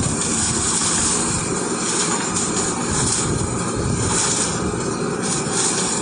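Self-loading mobile concrete mixer's diesel engine running hard and steady while its drum turns to discharge a gravelly concrete mix down the chute, the material pouring out.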